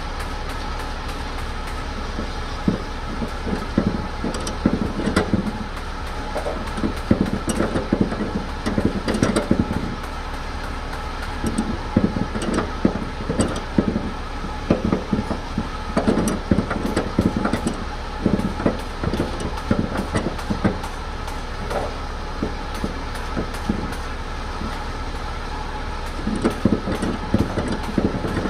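Yellow ratchet tie-down straps being worked by hand at a flatbed trailer's side, giving bursts of rapid clicking and rattling over a steady low hum.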